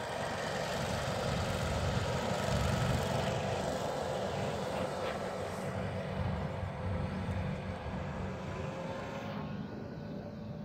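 Avtoros MYL all-terrain vehicle running steadily as it drives across a field, spreading fertilizer: a steady drone with a faint whine over it. The high hiss drops away about nine seconds in.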